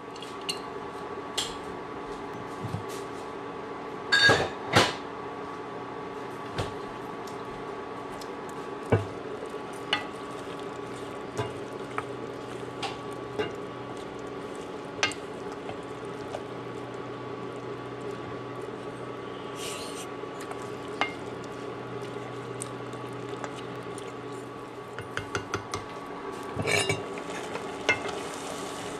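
A spoon stirring curry in a pot, knocking and clinking against the pot over a steady background hum. There are two louder knocks about four seconds in, light scattered clinks after that, and a quick run of knocks near the end.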